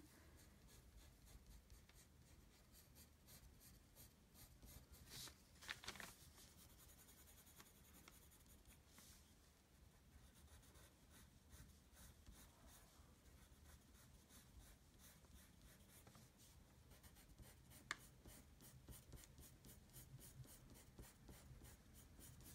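Faint scratching of a Prismacolor Premier black colored pencil shading on paper in short, quick back-and-forth strokes, with a couple of louder strokes about five seconds in.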